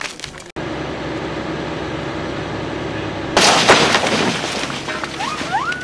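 Doosan tracked excavator's diesel engine running steadily. About three and a half seconds in, a loud crash as its bucket tears into a brick building's roof and walls, with debris breaking and falling for about a second.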